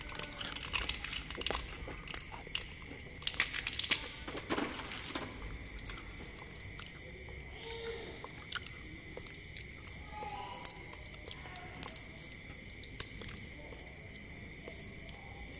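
Crinkly plastic lollipop wrappers being picked at and peeled off by hand: irregular crackles and rustles, loudest a few seconds in.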